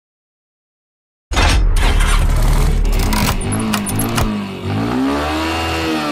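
After about a second of silence, a motorcycle engine sound starts with a loud low rumble and a few sharp clicks, then revs with its pitch rising and falling several times.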